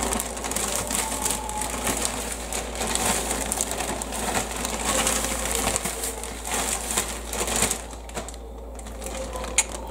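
Zip-top plastic bag crinkling and rustling as fish fillets are shaken in seasoned breading inside it. The shaking dies down about eight seconds in.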